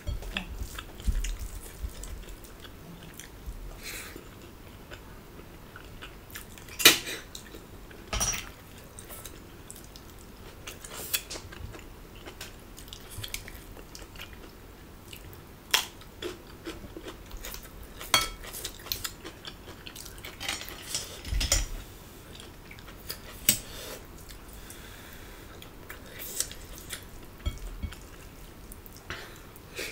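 Close-miked eating: chewing and mouth sounds, with scattered sharp clicks and clinks against ceramic plates.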